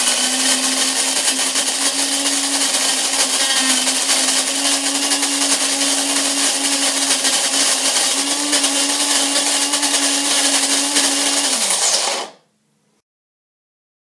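Cuisinart DBM-8 electric burr mill grinding coffee beans on its medium setting: a loud, steady motor whir with a hum. About twelve seconds in, the hum falls in pitch and the motor winds down and stops by itself, its timer having ground the 4-cup amount.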